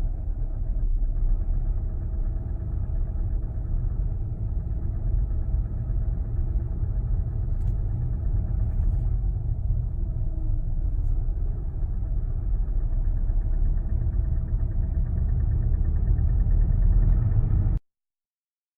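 Engine of a 2019 Volkswagen Jetta GLI, a 2.0 TSI turbocharged four-cylinder, running steadily at idle, then cutting off abruptly near the end. This is the unexplained engine noise the owner reports on the car since it had only 300 km.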